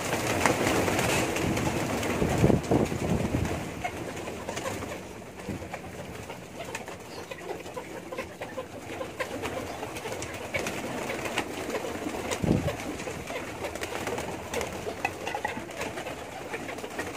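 Domestic pigeons cooing, with scattered clicks and rustling. A louder flurry comes about two to three seconds in, and a shorter one near twelve seconds.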